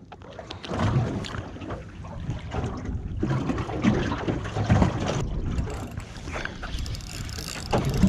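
Wind buffeting the microphone in uneven gusts, with water slapping against a small boat's hull and occasional knocks of handling.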